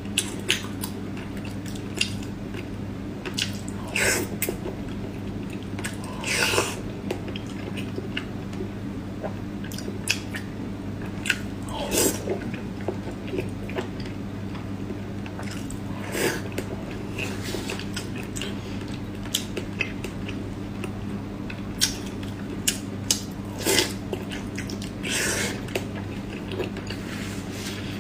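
Close-up mouth sounds of someone eating braised pork belly: irregular wet chewing, smacking and biting clicks, over a steady low hum.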